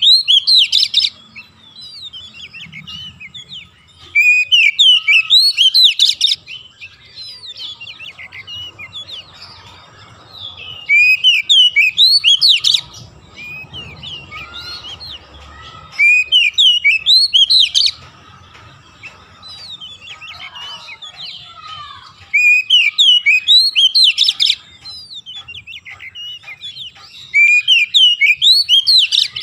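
Oriental magpie-robin singing: loud bursts of rapid, varied high notes, each about two seconds long and coming every five or six seconds, with softer twitters in between.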